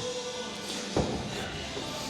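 Background music with a steady beat, and a single dull thud about a second in.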